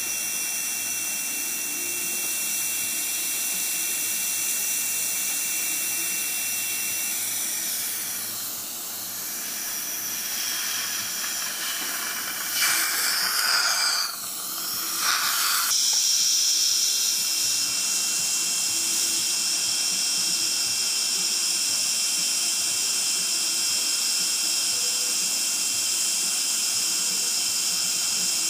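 Dental suction hissing steadily, with a thin high tone that stops about seven seconds in and comes back about sixteen seconds in. From about twelve to sixteen seconds the hiss turns louder and rougher as the suction tip is moved through the mouth.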